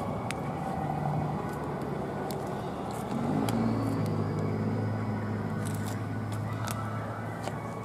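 A motor vehicle engine hum swells in about three seconds in and fades near the end, over a steady background rumble, with scattered light clicks.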